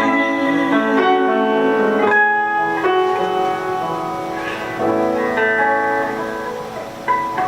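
Guitar playing the closing chords of a slow song: sustained chords changing about once a second, slowly fading, with a few single plucked notes near the end.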